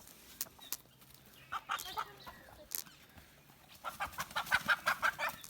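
Hen clucking while being chased and grabbed: a few short calls about one and a half seconds in, then a fast run of clucks near the end, about six a second.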